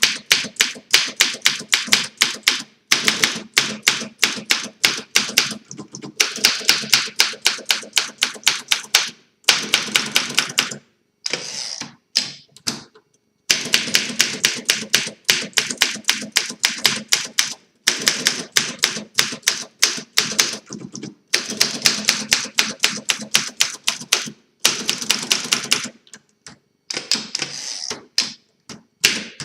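1956 Olympia SM3 DeLuxe manual typewriter being typed on, freshly restored with new platen rubber: quick runs of sharp key strikes, several a second, broken every few seconds by short pauses.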